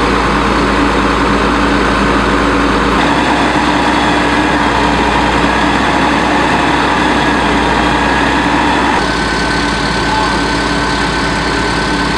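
Fire engine running steadily, its pump drawing water through a hard suction hose from a pond. The sound changes abruptly twice, about three and nine seconds in.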